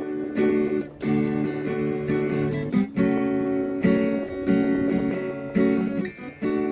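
Acoustic guitar strummed in chords, each chord struck and left to ring, with brief breaks between phrases.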